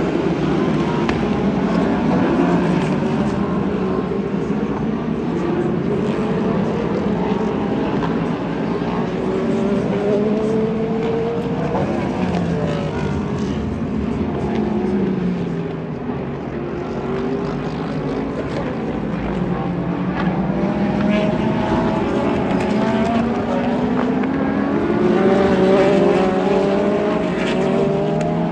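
IMSA sports-prototype and GT race cars running at speed, several engines overlapping continuously, their pitch rising and falling as the cars accelerate, shift and pass.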